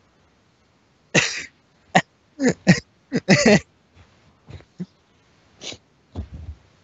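A person coughing and clearing their throat in a string of short, sharp bursts. The loudest come in the first half, then quieter ones follow near the end.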